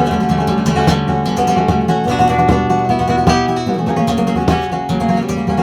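Flamenco guitar rasgueo: a chord strummed with rapid, repeated finger strokes across the strings.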